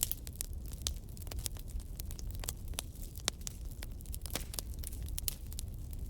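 Campfire burning, with a steady low rumble and frequent irregular sharp pops and crackles of burning wood.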